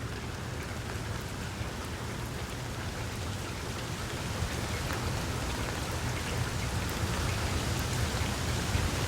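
Steady rain falling on tree leaves, growing a little louder toward the end, with a low rumble underneath.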